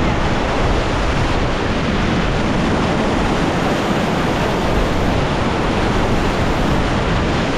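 Whitewater of a river rapid rushing in a steady, loud roar of water.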